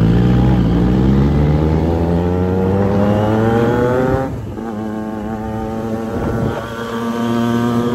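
Motorcycle engine pulling hard, its pitch climbing steadily for about four seconds. It drops sharply at a gear change, then pulls again more steadily.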